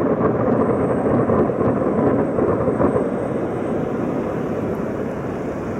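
A continuous rolling rumble of distant booming bangs, one running into the next and echoing around surrounding buildings like a non-stop barrage of big fireworks. It eases slightly near the end.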